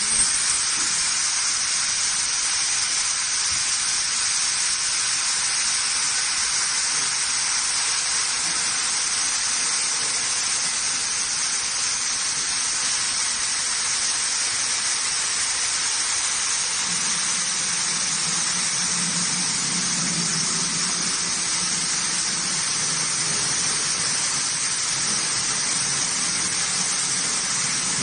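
4 kW fiber laser cutting head cutting 12 mm stainless steel plate: a loud, steady hiss of assist gas blasting through the nozzle and the cut. A low hum joins in a little past halfway.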